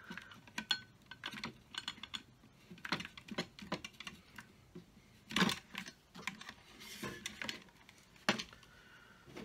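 Steel drill bits clicking and clinking against each other and their metal index case as they are pulled out and slotted back, in quick irregular clicks. There is a louder knock about five and a half seconds in and another near the end as the case is handled.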